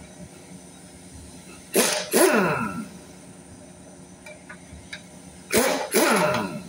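Pneumatic impact wrench running on an engine's oil pan bolts in two bursts, each a quick blip followed by about a second of running whose pitch falls as it winds down.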